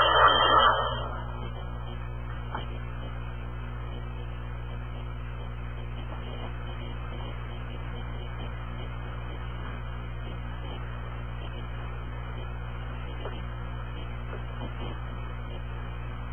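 Hand-held hair dryer blowing, then switched off about a second in; after that only a steady low electrical hum.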